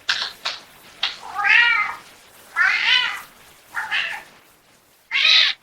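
AI-generated house cat meowing over and over, about six calls in a row: some short, two longer drawn-out ones, and a loud one near the end. It is an insistent alarm call that alerts the family to smoke.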